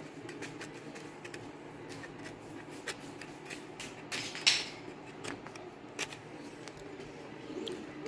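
Scattered light clicks and scrapes of small parts being handled, with one short louder scrape about four and a half seconds in, over the steady hum of a 3D printer running.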